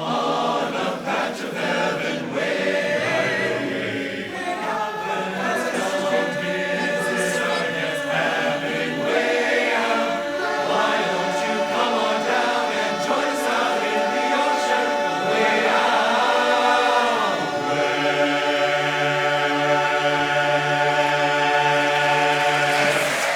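A barbershop chorus singing a cappella in close harmony through the closing phrase of the song. It ends on a long held final chord over the last few seconds.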